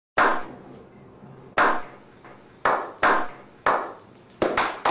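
A slow clap: single hand claps about a second apart, each with a short ringing tail, then quickening into the faster claps of several people near the end.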